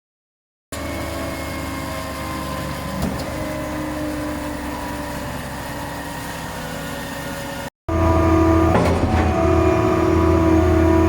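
SANY 37 m boom concrete pump truck on an Isuzu chassis running: a steady engine hum with several held tones. It starts about a second in, breaks off briefly near eight seconds, then returns louder with a knock or two.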